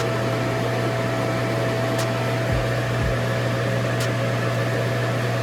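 A workshop machine running steadily with an even hum, with a faint sharp tick about every two seconds.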